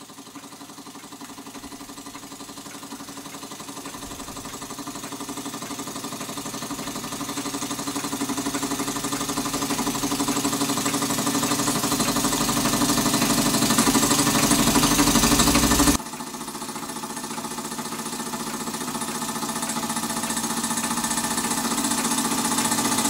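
Small scratch-built model steam engine running smoothly on steam, its crank turning with a fast, even beat. It grows steadily louder, drops suddenly about two thirds of the way in, then builds again.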